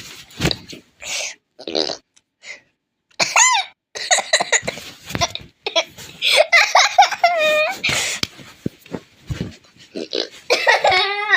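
Cartoonish laughing sound effects mixed with burp-like noises, coming in short choppy bursts. High, wavering and gliding squeaky voice sounds come in a few seconds in, again in the middle and near the end.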